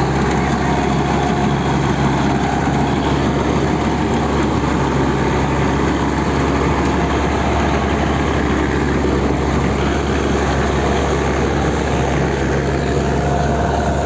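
Guru Nanak combine harvester running steadily while harvesting rice: its engine and threshing gear make a loud, unbroken drone.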